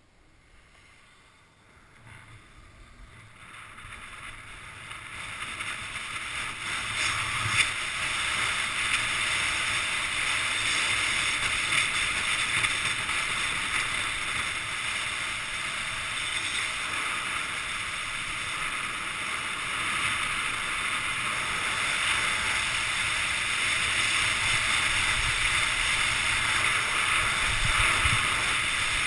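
Skis sliding over groomed snow, with wind rushing over the camera's microphone. It makes a steady hiss that builds from near silence over the first several seconds as the skier gathers speed, then holds.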